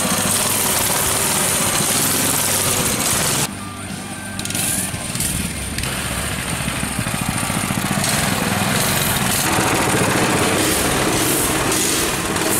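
Small mini bike engines running, the sound dropping and changing suddenly about three and a half seconds in, then building back up.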